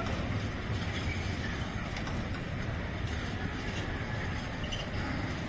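Container freight train's flat wagons rolling past, steel wheels on the rails making a steady noise with a few faint clicks.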